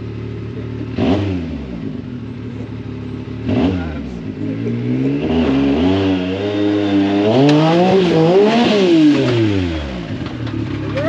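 Side-by-side UTV engine idling, blipped twice, then revved up in a long climb that peaks and falls back to idle near the end.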